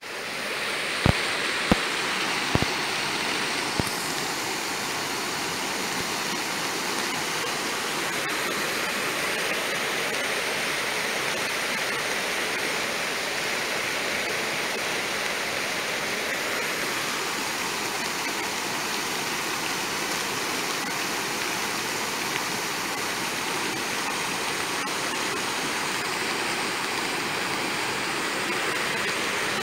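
Rushing floodwater in a rain-swollen, muddy creek: a steady, even rush of water. A few sharp knocks sound in the first four seconds.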